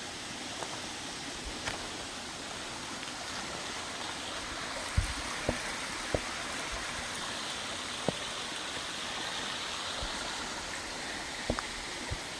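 Steady rushing of a mountain stream or waterfall. From about five seconds in, a few short soft knocks sound over it.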